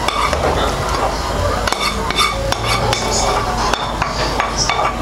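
Spoon scraping and knocking against a frying pan as thick tomato sauce is pushed out of it into a pot of meat, with many short irregular clinks.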